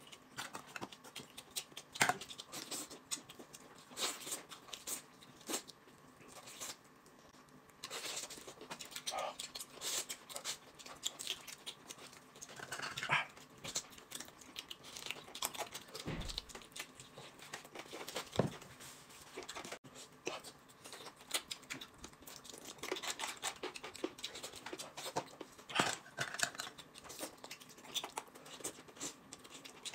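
Faint close-up eating sounds: chewing, lip-smacking and tearing at a chicken leg, as a scatter of short irregular clicks and smacks.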